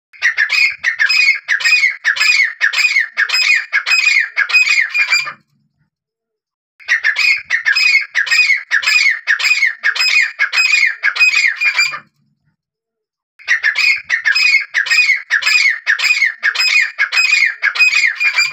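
Grey francolin calling: three bouts of loud, shrill notes repeated rapidly, about three a second, each bout lasting about five seconds with short silent gaps between.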